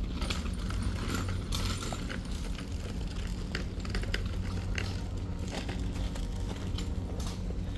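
Footsteps crunching irregularly on a dirt path, over a steady low rumble.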